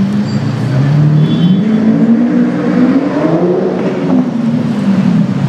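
Twin-turbo V12 of a Mansory Carbonado Apertos supercar running low in traffic, then revving: its pitch climbs over about two seconds and falls back just past the middle.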